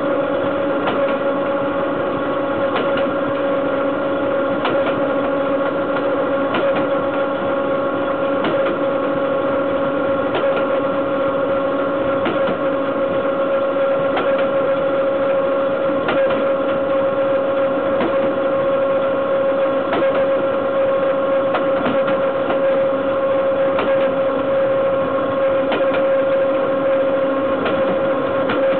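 Wheels of a BDZ class 43 electric locomotive rolling on the rail at speed under a 1308-ton freight train: a steady rolling noise with a constant whine, and a click over a rail joint about every two seconds.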